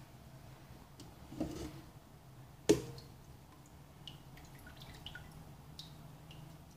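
A steel pot handled in a stainless-steel sink: a brief shuffle, then one sharp metal knock about two and a half seconds in, followed by scattered light drips of water.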